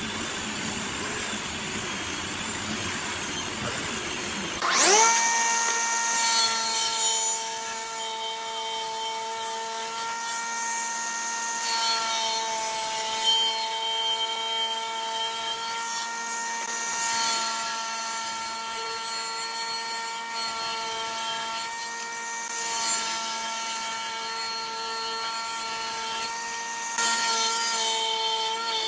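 Table saw spinning up about five seconds in, its blade rising to speed, then running with a steady whine while a thick wooden board is ripped along the blade, the pitch and level wavering slightly under the cut. Before it starts, a steady noise.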